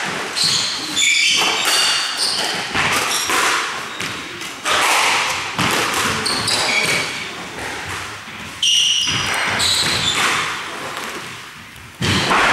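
Squash rally in a reverberant court: the ball struck by rackets and smacking off the walls in a quick irregular series of hits, with short high squeaks of shoes on the wooden floor between them.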